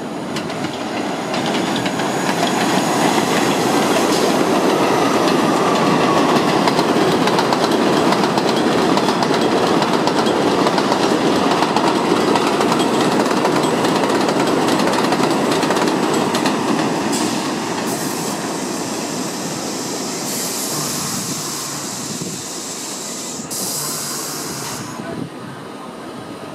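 R62A subway train running as a 7 express, passing through an elevated station at speed on steel rails. The rumble builds over the first few seconds, with a rising whine about five seconds in, holds loud for about ten seconds, then fades as the train goes by.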